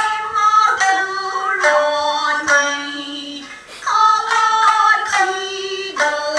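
Traditional Japanese dance song: a woman singing long held notes that slide from one pitch to the next, over shamisen plucks.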